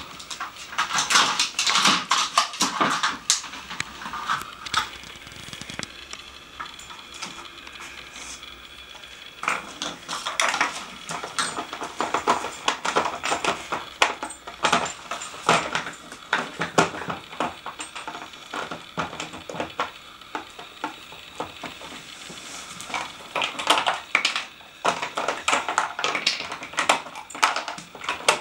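Nina Ottosson plastic dog treat puzzle clattering and clicking as a dog noses and paws at it, knocking the bone-shaped plastic pegs and pieces about to get at the treats. The clicks and knocks come in busy bursts with quieter pauses between.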